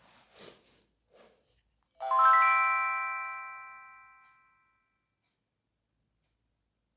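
ZTE feature phone's chime: a quick rising run of bell-like notes, about two seconds in, that rings on and fades away over about two and a half seconds, as on power-up. A few faint clicks come before it.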